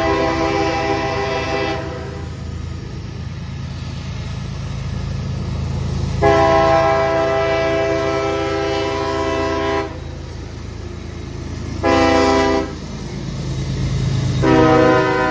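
Diesel locomotive air horn sounding over the low rumble of the train: the end of one blast, then a long blast, a short one and another long one starting near the end. This is the long-long-short-long grade crossing signal.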